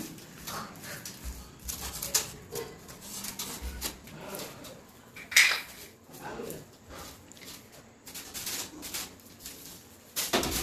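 Hand broom sweeping a floor: a series of short, irregular brushy strokes, with one louder sharp knock or clink about five seconds in.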